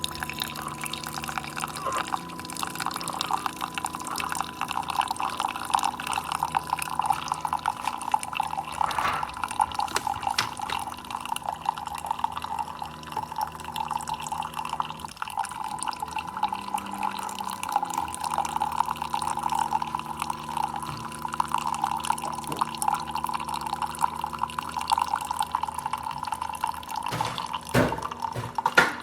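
Coffee maker brewing: water bubbling and dripping over a steady low hum that breaks off briefly about halfway through.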